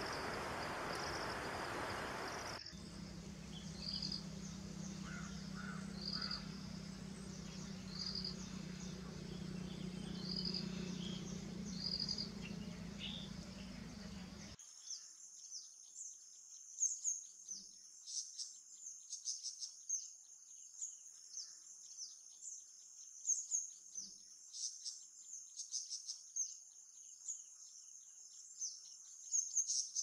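Nature ambience from birds and insects. At first there is a short hiss. Then a bird gives a short, high call about every two seconds over a steady low hum. About halfway through the sound switches to dense, rapid high-pitched chirping with sharp peaks.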